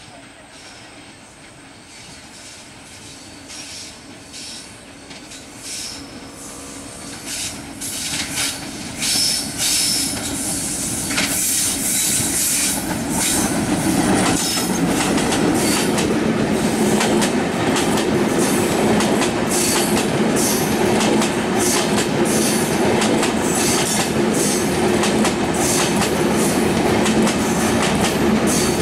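Diesel-hauled Bangladesh Railway passenger train approaching and passing close by. The noise grows steadily louder over the first half, with high wheel squeals and clicks as the locomotive draws level. Then the coaches roll past with a steady rumble and clickety-clack of wheels over the rail joints.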